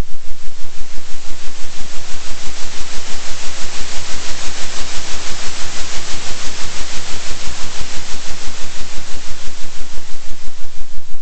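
Synthesized noise, an even hiss, pulsing in loudness about three times a second over a steady low tone: a 3 Hz oscillating noise track.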